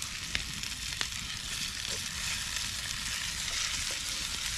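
Chicken frying in butter in a cast iron skillet over a campfire: a steady sizzle, with two faint sharp ticks in the first second.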